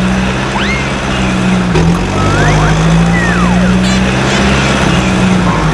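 Vehicle engine running steadily with a constant low drone that dips briefly twice, with a few short high gliding chirps over it.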